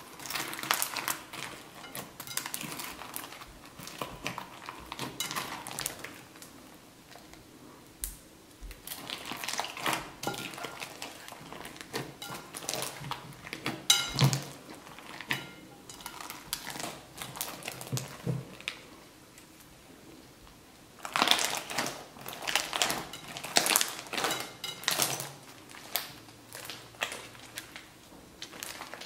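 Hand-squished fluffy slime crackling and popping as air bubbles burst while it is kneaded and stretched, in irregular bursts of wet clicks with short pauses.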